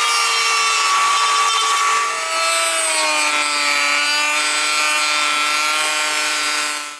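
Small rotary tool with a cut-off disc running and cutting into the hard plastic of an RC excavator boom: a steady high whine over a grinding rasp. The whine drops in pitch about two seconds in, then holds until it stops abruptly at the end.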